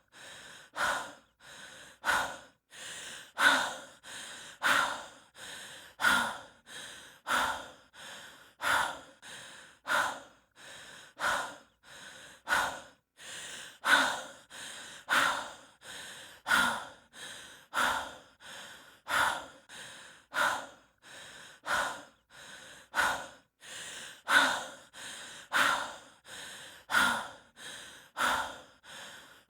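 A hiker breathing heavily and fast from the exertion of walking. A loud breath comes about every second and a half, each followed by a softer one, in a steady, even rhythm.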